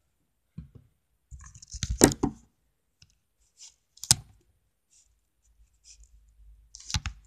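Handling noises close to the microphone: scattered clicks and knocks of objects being picked up, set down and fiddled with, loudest about two seconds in and again near the end.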